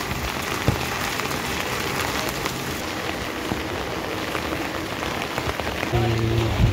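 Heavy rain falling steadily on a wet street, with many small drops ticking on an umbrella overhead. A low steady hum comes in near the end.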